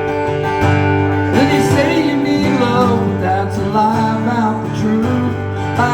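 Live acoustic country music: a strummed acoustic guitar, with a wavering lead melody played over it from about a second and a half in, during an instrumental break in the song.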